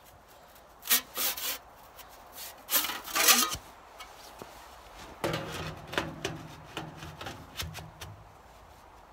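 Sheet-metal stovepipe sections scraping and rubbing against each other as they are handled and fitted together. There are a few short scrapes in the first few seconds, then about three seconds of scraping with small clicks from about five seconds in, as one section is slid onto the pipe.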